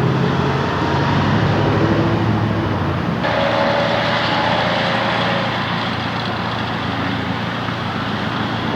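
Steady road noise from moving vehicles, changing abruptly in character about three seconds in.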